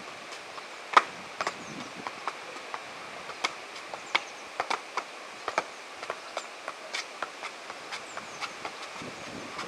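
Football being juggled with the feet: an irregular string of sharp taps as the ball strikes the foot and shoe, the loudest about a second in. A steady hiss of wind runs underneath.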